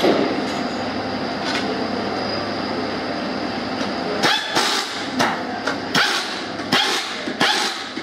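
Steady hum of a factory assembly line, then from about four seconds in a handheld power screwdriver runs in short, loud bursts, about one a second, driving screws into a motorcycle engine crankcase.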